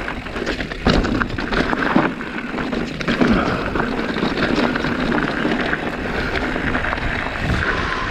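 Mountain bike being ridden over a rough dirt and rock trail: a steady rumble of tyres on the ground, with the frame and chain rattling and knocking on bumps.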